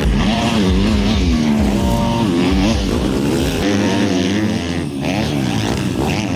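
MX2 motocross bike engines revving hard, the pitch climbing and dropping again and again as the throttle is opened and closed through the gears, with more than one engine heard at once.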